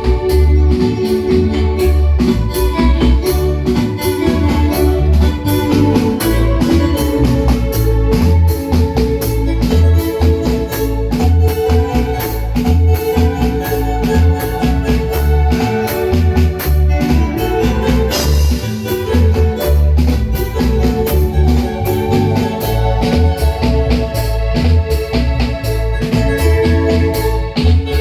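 Live Guatemalan-style marimba band playing dance music: a held, organ-like melody over a steady pulsing bass and drum beat, with a brief bright swell about two thirds of the way in.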